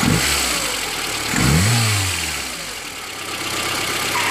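VAZ-21093 carburettor four-cylinder engine running, freshly rebuilt, blipped once about a second and a half in, its pitch rising and then falling back to idle. The owner is hunting an intermittent strange noise in it that he cannot place.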